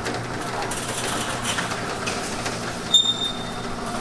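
Roll-up garage door being raised, with a steady rattling rumble. About three seconds in, a sharp high squeal rings out for under a second.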